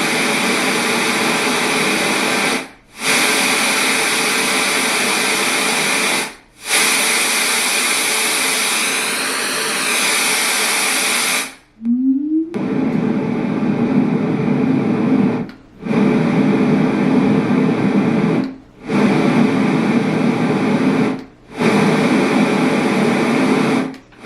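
LectroFan white noise machine playing loud, even noise that cuts out briefly every few seconds as it steps to the next noise setting. About halfway through, a short rising 'whoop' marks the end or start of its list of noises, and the noises after it are deeper.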